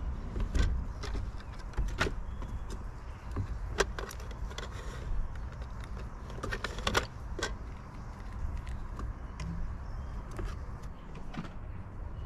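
Irregular sharp clicks and knocks from squirrels feeding at a garden squirrel feeder, over a steady low rumble of distant traffic.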